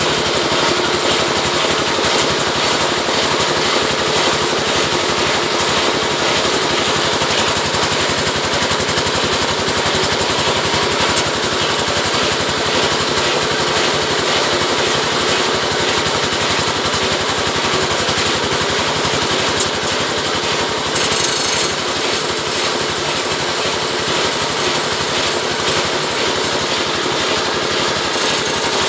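Oil palm lidi (frond-rib) stripping machine running with a loud, steady, dense rattle.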